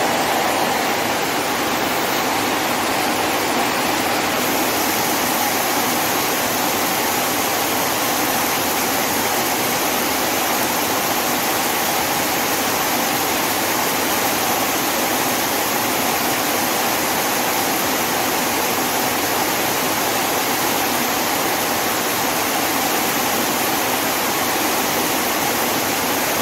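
Heavy rain pouring down hard, a loud, steady, even rush of falling water.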